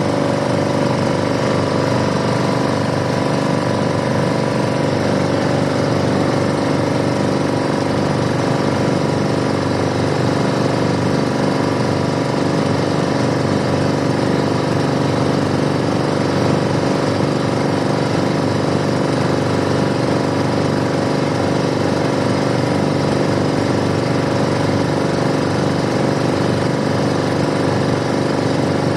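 Tour boat's engine running loud and steady at an unchanging speed.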